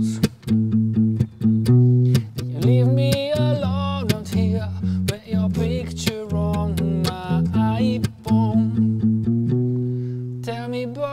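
A man singing, accompanied by plucked notes on an acoustic bass guitar.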